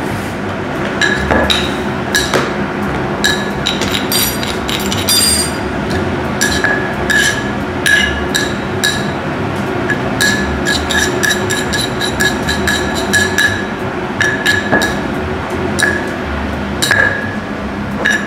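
Many light clinks of a utensil striking a ceramic or metal dish, coming irregularly and each ringing briefly at the same pitch, over a steady low hum.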